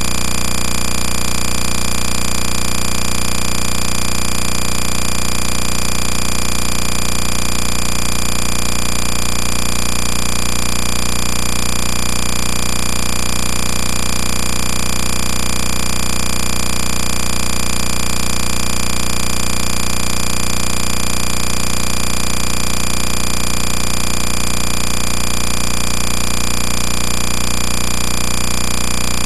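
Loud, steady mechanical running sound with a fast, even rattle low down; it does not change.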